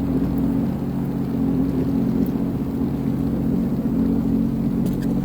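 Sea-Doo Fish Pro personal watercraft engine running at a steady pitch, with a low rumble.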